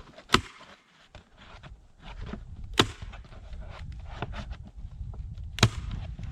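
A staple gun firing three times, a few seconds apart, fastening roofing felt to the wooden beehive, with lighter rustling and clicks of the paper between shots. A low rumble comes in about two seconds in.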